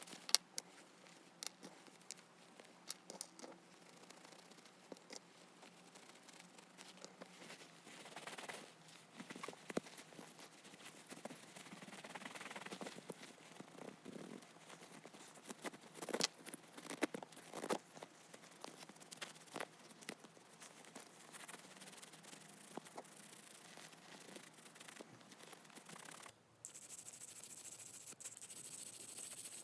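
Faint handling sounds of a metal pocket lighter being worked on: scattered small clicks with scraping and rubbing in between. A brighter steady hiss comes in near the end.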